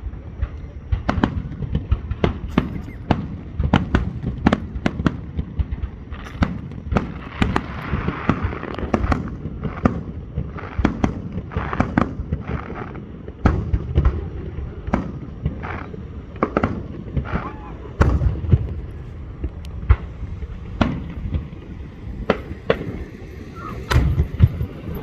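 Aerial fireworks bursting in a show: a dense, irregular run of sharp bangs, often several a second, over a low rumble.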